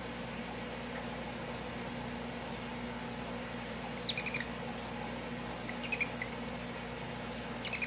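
A small animal's short, high-pitched chirps, coming in quick clusters about four seconds in, again around six seconds and near the end, over a steady low hum.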